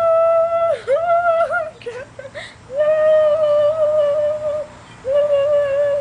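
A woman humming one long high note as a mock hummingbird call. It dips and wavers a few times and breaks off briefly twice.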